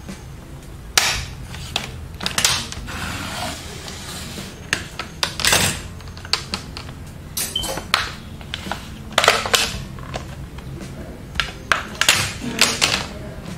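Plastic snap clips of a Lenovo ThinkPad E470 screen bezel popping loose as the bezel is pulled away from the lid by hand: an irregular run of sharp plastic clicks and snaps, with some rubbing of plastic between them.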